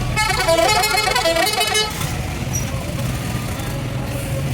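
A horn playing a short tune of stepping notes for about a second and a half near the start, over the steady low rumble of traffic.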